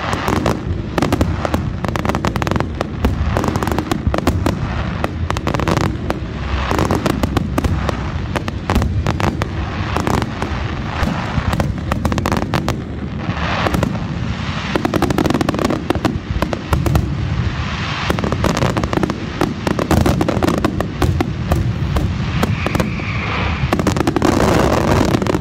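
Large fireworks display: a dense, unbroken barrage of aerial shell bursts and crackling stars, many bangs following one another without pause.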